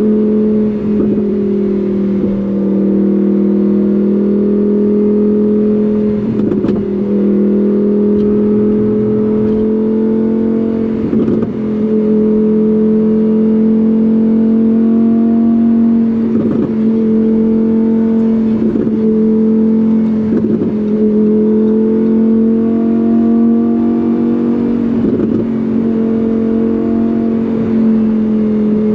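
Lamborghini Huracán Performante Spyder's naturally aspirated V10 running at a steady engine speed, a loud even drone that barely changes pitch, with occasional brief knocks every few seconds.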